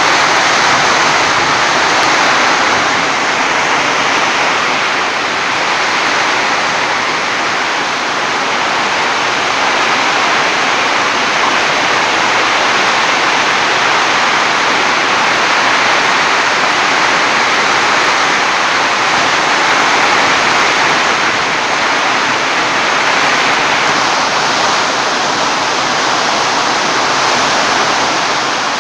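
Heavy rain pouring down in strong wind: a loud, steady rush of water.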